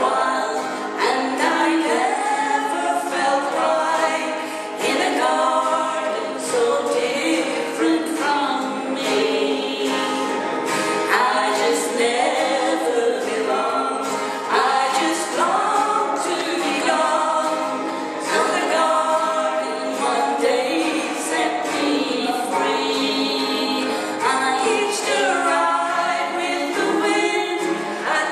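Two women singing a folk song together in harmony, each playing an acoustic guitar.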